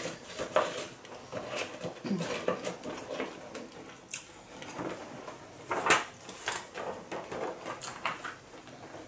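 A person chewing a fresh spring roll with herbs close to the microphone: irregular wet clicks and smacks, loudest about half a second in and near six seconds.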